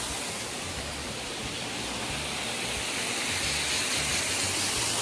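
Small waterfall: thin streams of water falling over a rock ledge onto rocks, a steady close rush of water that grows a little louder in the second half.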